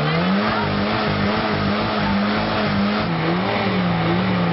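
SEAT saloon's petrol engine revved hard and held high, around 5,000 rpm on the tachometer. Its pitch climbs about half a second in, then dips and recovers a few times as the throttle is worked.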